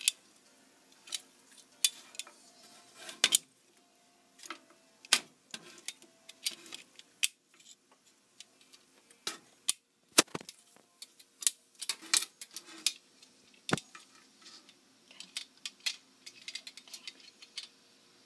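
Metal tongs clicking shut and tapping on a griddle as bacon strips are picked up and turned: irregular sharp clinks, sometimes several close together.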